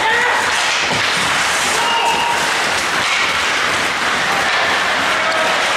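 Hockey crowd in an ice rink cheering and shouting, a steady wash of crowd noise with scattered short yells.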